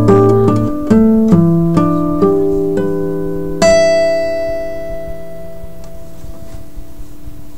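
Acoustic guitar fingerpicked: a short run of single plucked notes, then a bright high note about halfway through that rings out with the lower strings and slowly fades.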